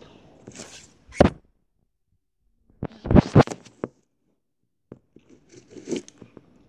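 Handling noise from fingers knocking and rubbing on the recording phone close to its microphone: a sharp knock about a second in, a burst of scraping knocks near the middle, and another near the end.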